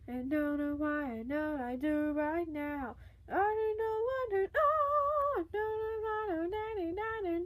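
A female voice singing an improvised song with no accompaniment, in long held notes with a wobble, pausing briefly about three seconds in and then carrying on higher.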